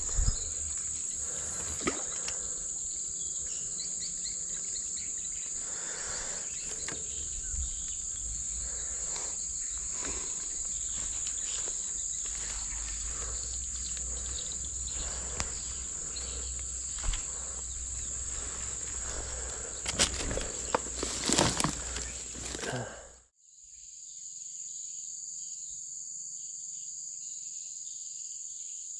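Steady high-pitched drone of insects, crickets or cicadas, with scattered clicks and knocks that are loudest about twenty seconds in. The sound drops out abruptly about twenty-three seconds in, then the insect drone returns.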